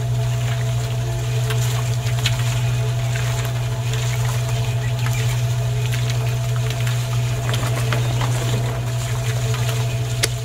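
Small electric motor of a miniature concrete mixer running, a steady low hum, with a scatter of small clicks and rattles from its gearing and the concrete mix in the turning drum.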